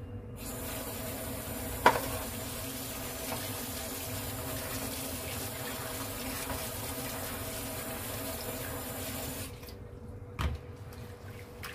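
Kitchen tap running into a plastic bowl of kelp while it is rinsed by hand, a steady rush of water that starts just after the beginning and stops about two seconds before the end. A sharp knock about two seconds in, and a dull thud near the end.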